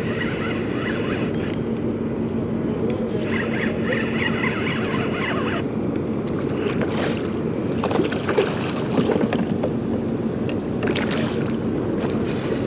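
Steady wind noise on the microphone over water lapping against a kayak, with a few sharp knocks around eight to ten seconds in.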